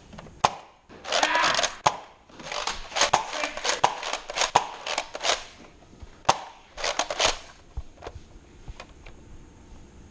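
Nerf foam-dart blaster being handled and reloaded: a run of sharp plastic clicks and knocks mixed with short stretches of clattering and rustling, quieter near the end.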